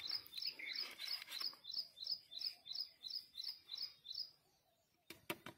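A bird calling, one short chirped note repeated evenly about three times a second, stopping about four seconds in. A few sharp clicks near the end.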